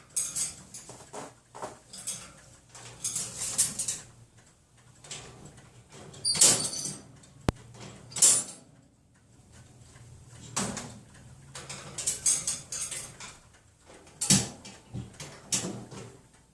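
Cage doors being banged and rattled by a pet animal playing on the cage: irregular bouts of metallic clattering, with two loud bangs in the middle.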